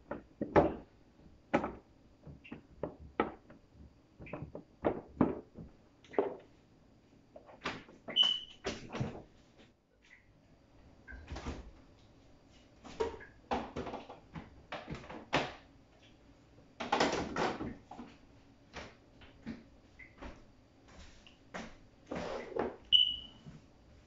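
Food and containers being handled and put into a refrigerator: irregular knocks, clicks and rustles as items are set onto the shelves, with two short high-pitched chirps.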